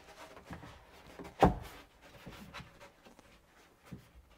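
Hands working glued foam blocks down into a plastic kayak hull against a carbon plate: soft rustling and light taps, with one sharp knock about one and a half seconds in.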